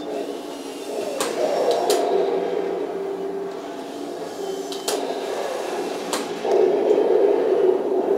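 Heng Long Tiger I RC tank's sound unit playing its simulated engine sound through the small onboard speaker while the tank drives over rocks, with a few sharp clicks. The engine sound steps up louder about six and a half seconds in.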